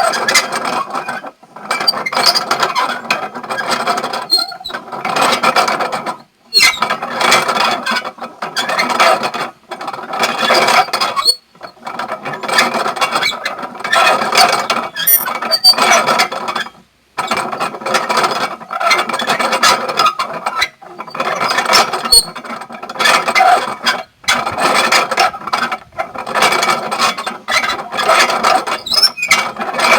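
Small sugarcane crushing mill (engenhoca) running, its gears and rollers grinding and squealing. The noise comes in stretches of two to four seconds broken by short, sudden gaps.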